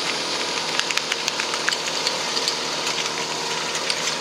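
Portable fire pump's engine running steadily, with scattered sharp clicks and knocks from about a second in.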